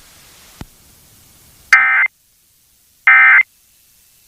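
Emergency Alert System end-of-message (EOM) data bursts: two short, identical electronic screeches about a second and a half apart, the digital SAME code that marks the end of the alert. A faint click comes just before them.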